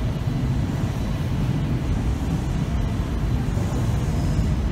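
Kintetsu limited express train pulling slowly into the platform: a steady low rumble, with a faint high squeal near the end.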